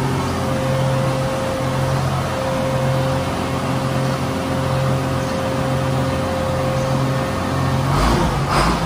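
Diesel engine of a Samsung SE450LC-2 crawler excavator running at a steady idle with an evenly pulsing hum, just after being started for the first time in more than ten years. Near the end a heavier, rougher low rumble comes in.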